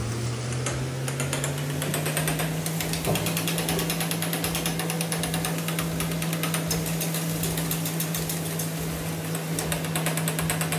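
Metal spatula rapidly tapping and scraping in a metal karahi (wok) over a high gas flame, crushing tomatoes into the chicken. A steady hum runs underneath and steps up in pitch about three seconds in.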